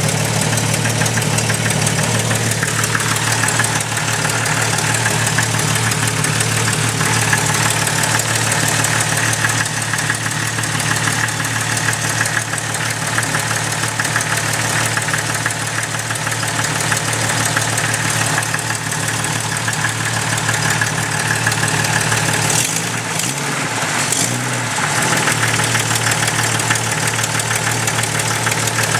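1997 Jeep Cherokee XJ's 4.0-litre straight-six idling steadily with a tick from the back of the engine. The tick is an exhaust leak where a cheap header gasket has blown apart.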